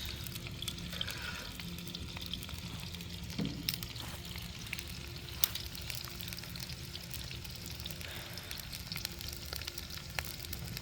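Onions sizzling in hot ghee in a karahi: a steady crackling fry with a few sharper pops.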